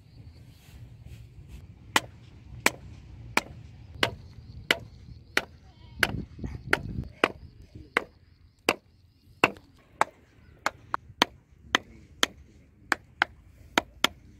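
A hammer striking the top of a wooden stake again and again, driving it into sandy ground: about twenty sharp knocks starting about two seconds in. They come at first about one and a half times a second, then quicker and less even near the end.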